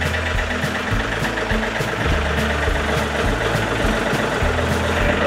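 John Deere compact tractor's Yanmar diesel engine idling steadily, warming up after a cold start from winter storage, with a regular tick about twice a second.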